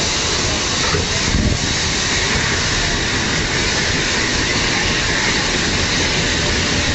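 Steam-hauled train with an HG 3/4 locomotive running, heard from an open passenger carriage: a steady rumble and hiss of the moving train on the rails, with one brief louder clatter about a second and a half in.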